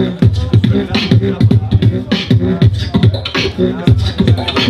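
Live beatboxing: a mouth-made beat of low kick-drum sounds about three times a second, with a hissing snare sound roughly every second and pitched bass tones underneath.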